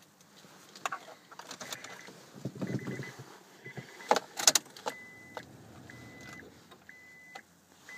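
Keys jangling and clicks and knocks of someone settling into a 2002 Honda Accord, then the car's warning chime starts beeping steadily about once a second.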